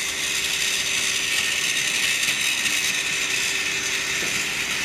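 Two battery-powered Trackmaster toy locomotives running together on the track, their small electric drive units whirring steadily with a faint constant hum.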